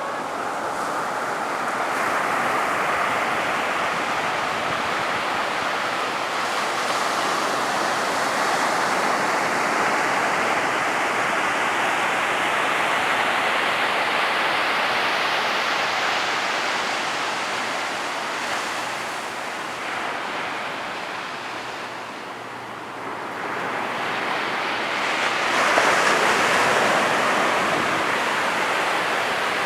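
Ocean surf breaking on a beach: a steady rush of water that swells and ebbs as waves roll in, dipping about 22 seconds in before a fresh wave crashes, the loudest moment, about 26 seconds in.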